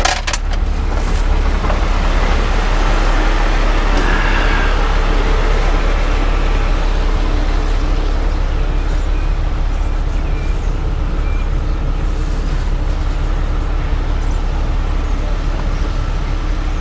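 Heavy rotator tow truck's diesel engine running steadily, a constant low rumble, with a few metallic clinks from its equipment compartment right at the start.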